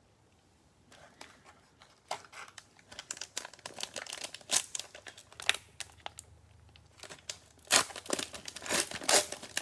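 Crinkling and tearing of a cellophane wrapper as a Mosaic football card cello pack is opened and handled. It starts about a second in, comes in crackly spurts, and gets louder and denser near the end.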